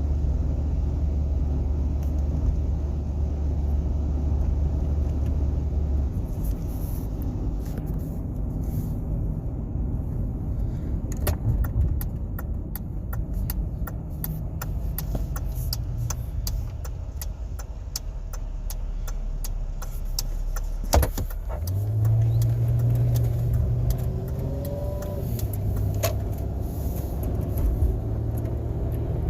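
2006 Ford Escape running, heard from inside the cabin: a steady low engine and road hum that changes pitch twice, with scattered light clicks and rattles and one sharp knock about two thirds of the way through.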